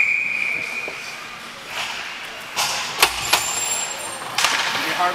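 A referee's whistle blows once for about a second, then skate blades scrape across the ice in hissing bursts, with two sharp knocks about three seconds in.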